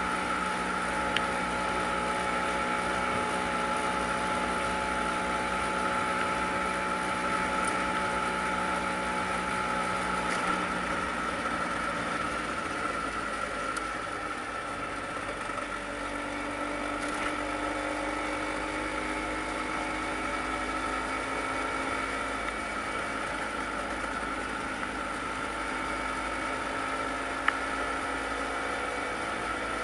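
Vespa PX 150 scooter's single-cylinder two-stroke engine running steadily while riding along; its note shifts slightly about halfway through and holds at the new pitch. One sharp click near the end.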